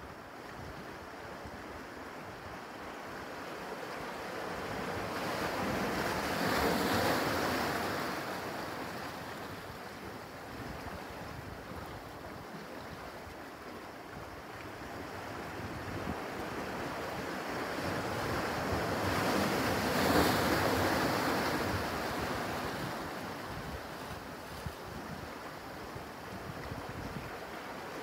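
Small sea waves washing in over dark shoreline rocks and draining back. The surf swells twice, about a quarter of the way in and again about two-thirds in, then subsides.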